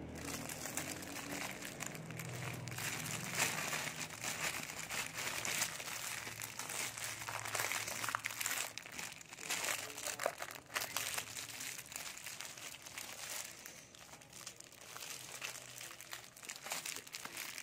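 Thin clear plastic crinkling and rustling as it is handled and wrapped around a foot, a dense crackle that thins out near the end.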